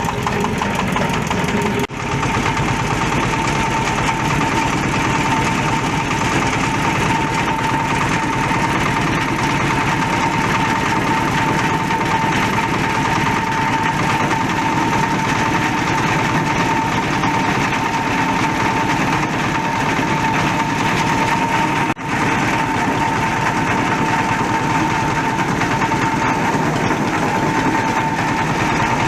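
Waste-cloth shredding machine running steadily, with a steady whine over a fast, even mechanical rattle.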